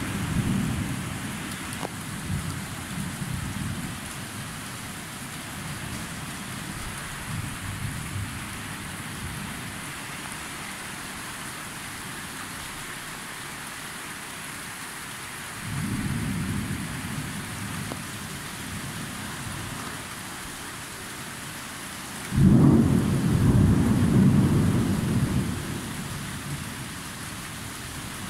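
Thunderstorm: steady rain falling throughout, with thunder rumbling. A rumble dies away at the start, another rises about halfway through, and a sudden loud thunderclap about three quarters of the way in rumbles on for several seconds.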